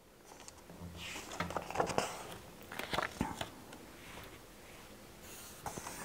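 Soft paper rustling and a few light taps as a page of a picture book is turned.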